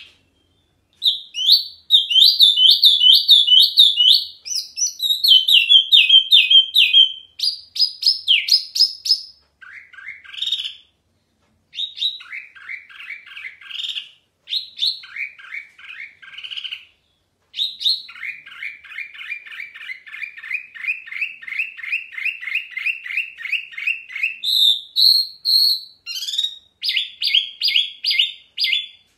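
Caged wambi mini songbird singing loud, clear, varied phrases of rapidly repeated notes and trills, several notes a second, with short pauses between phrases.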